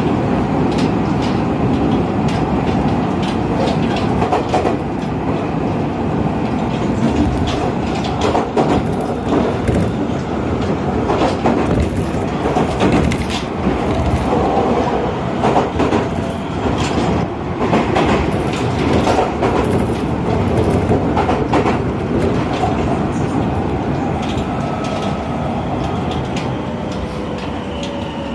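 Keio Inokashira Line electric train running at speed, heard from inside the car: a steady rumble of wheels on the rails with many clicks as the wheels cross rail joints. Near the end, faint tones slide down in pitch.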